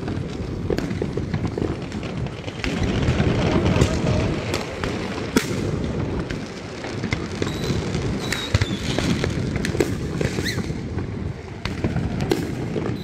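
Fireworks going off one after another: many sharp cracks and bangs over a continuous rumble of booms.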